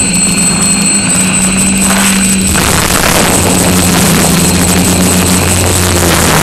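Quadcopter's electric motors and propellers buzzing, picked up close by the camera mounted on the craft: a loud, steady low hum with a thin high whine above it, the hum shifting in pitch a little a few seconds in as the motor speeds change.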